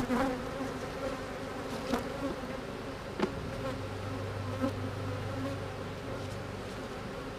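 Honeybees buzzing around an opened hive, a steady drone, with a few light knocks as the wooden hive frames are handled.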